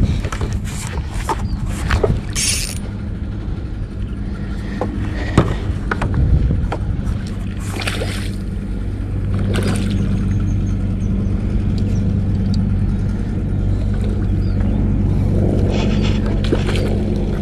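A boat engine running with a steady low hum that settles into an even drone from about nine seconds in. A hooked fish splashes at the water's surface a few times over it.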